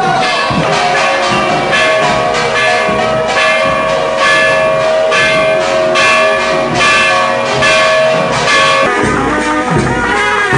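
Temple procession music: bells and drums struck in a quick steady rhythm, about three strikes a second, over a long held tone. The held tone stops about nine seconds in, leaving heavier, deeper drumming.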